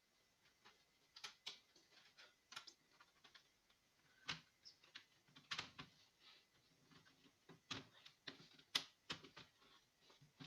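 Irregular light clicks and taps, about a dozen scattered unevenly, against near silence.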